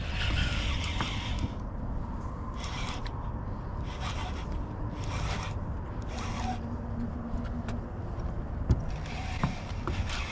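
Baitcasting reel being cranked in short bursts to bring in a hooked striped bass, a whirring scrape with each run of turns, over a steady low rumble. Two sharp clicks come near the end.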